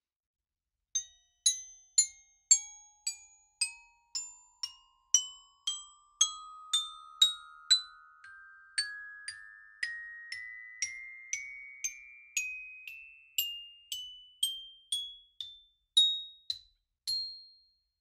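Tuned mallet percussion notes struck one after another, about two a second: a few high notes, then a long scale that climbs steadily higher, ending on one last high note. This is a cartoon-style rising effect.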